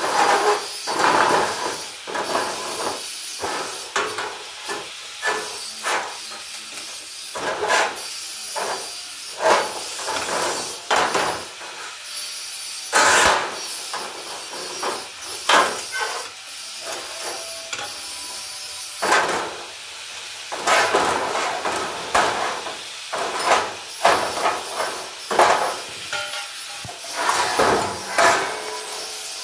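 Thin sheet-metal plates being bent and handled on a steel frame with a homemade angle-iron bending tool: irregular metallic clanks, knocks and rattles, some with a short ring from the sheet.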